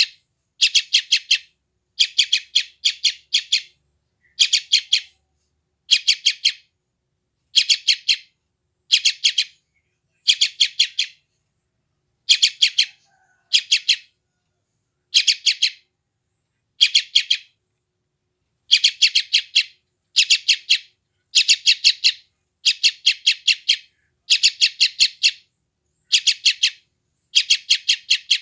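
Young yellow-vented bulbul giving its calls, short bursts of four to six rapid, high chirps, about one burst a second with occasional brief pauses.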